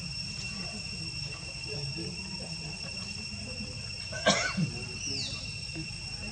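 Steady high-pitched insect drone over a low background murmur, broken about four seconds in by a brief sharp sound and, just after, a short falling squeak.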